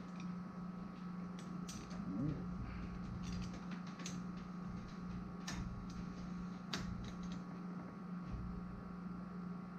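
Scattered light clicks and ticks of a threaded air fitting being handled and tightened, over a steady low hum.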